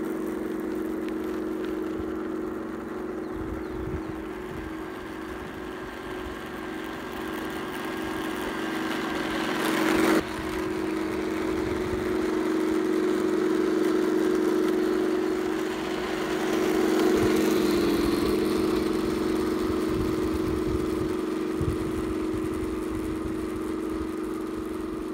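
Tamiya 1/16 Leopard 2A6 radio-controlled model tank running as it drives over gravel, a steady humming drone. About ten seconds in a rising hiss builds and cuts off suddenly, and near eighteen seconds the drone wavers briefly.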